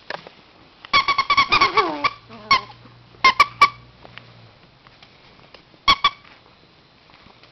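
Repeated high, sharp squeaks amid a yorkie and a maltese's play-fight: a quick flurry about a second in with a falling whine inside it, then a single squeak, three in quick succession, and a pair near the end.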